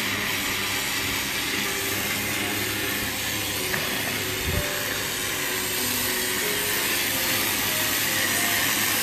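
High-pressure water jet from a pressure-washer lance blasting a boat's hull, a steady hiss of spray with a steady low hum underneath. The jet is stripping marine growth and barnacles off the antifouled hull.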